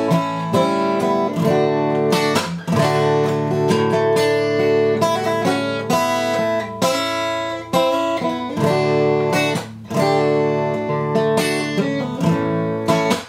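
Solo acoustic guitar strummed in chords, an instrumental passage between the sung verses of a ballad.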